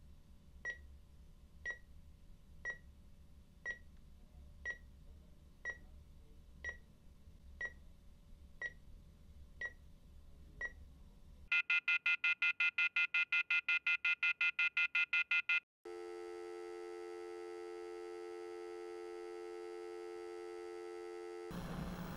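Hospital heart monitor beeping about once a second, then sounding a fast pulsing alarm for about four seconds, then a steady flatline tone for about six seconds: the heart has stopped. A short burst of noise comes right at the end.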